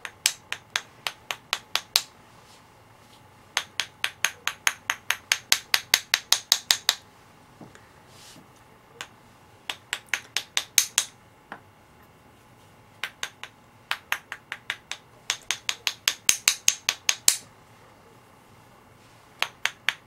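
Rapid sharp taps, about five or six a second, in runs of two to four seconds with short pauses between. A paint-loaded spatter tool is being struck against a handle to fleck paint onto the painted surface.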